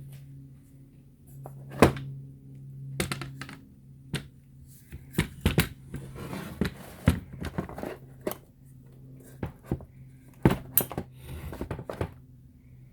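An AR-22 rifle being handled: a string of irregular clicks and knocks of its parts, the loudest about two seconds in and about ten and a half seconds in, with sliding and rubbing noises in between. A low steady hum runs underneath.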